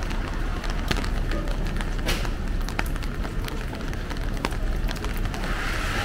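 Steady rain falling in a city street, with scattered sharp ticks of drops landing close by; a brighter hiss comes in near the end.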